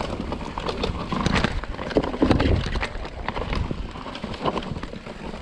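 Mountain bike rolling down a steep, loamy dirt trail: tyres rumbling over dirt and roots, with irregular knocks and rattles from the bike, most intense about two seconds in.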